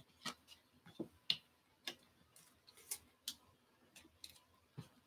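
Trading card slid into a clear plastic sleeve or holder: about eight light clicks and taps of stiff plastic at irregular spacing.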